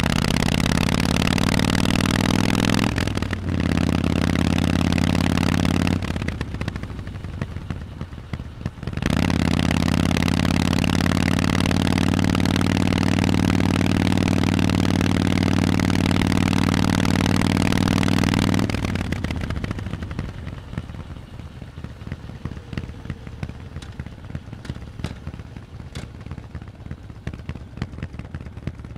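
Harley-Davidson Forty-Eight's 1200 cc air-cooled V-twin through Vance & Hines exhausts, running strongly under way with a brief dip about three seconds in. It falls to a quieter, uneven note for a few seconds, comes back strong from about nine seconds, then drops to a lower, uneven rumble with light crackles for the last ten seconds.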